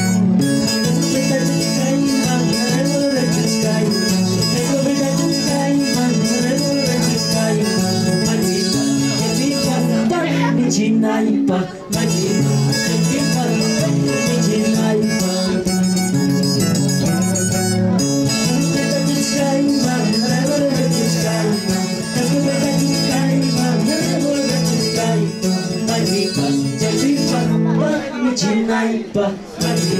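Pumpin, the Ayacucho folk song style, played live on guitar with a man singing, amplified through a PA loudspeaker. The music drops out briefly about eleven seconds in and again near the end.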